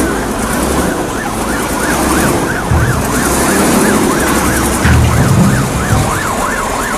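Ambulance siren wailing in a fast up-and-down yelp, about three sweeps a second, over a low background rumble.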